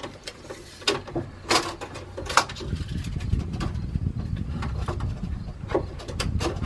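Scattered sharp clicks and light knocks of hand tools and tape measures being handled against a plywood box frame. A low rumble comes up about two and a half seconds in and carries on under the clicks.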